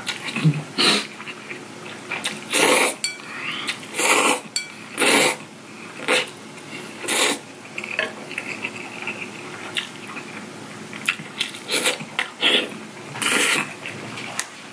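A person slurping spicy cold mixed noodles (bibim-myeon) from a bowl held to the mouth: a series of about eight short, sharp slurps, with chewing between them.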